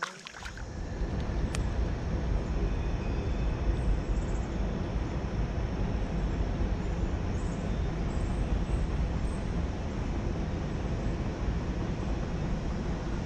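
Wind buffeting an action-camera microphone: a loud, steady low rumble with no pitch to it. A sharp click comes right at the start.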